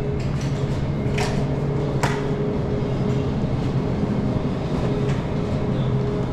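Supermarket interior noise: a steady low hum and rumble with a faint steady tone, broken by two sharp clatters about one and two seconds in.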